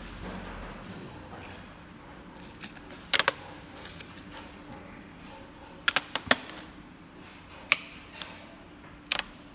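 Sharp clicks and crackles of hands working a vinyl decal and its backing paper on a motorcycle fuel tank, coming in small clusters: three about three seconds in, four around six seconds, then single ones and a last pair near the end.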